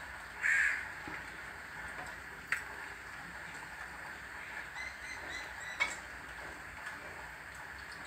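A crow caws once, loudly, about half a second in, and a quick run of about six short bird calls follows a few seconds later, over a steady hiss of rain. A sharp click comes twice.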